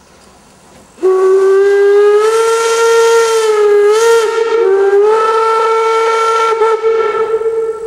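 Steam locomotive whistle blowing one long blast of about six seconds, starting suddenly about a second in, with a brief dip in pitch around the middle and a hiss of steam over it.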